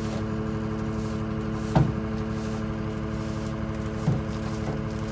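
Geoprobe 6600 direct-push rig's engine running steadily, driving the hydraulics while the mast is being folded, with two short knocks about two and four seconds in.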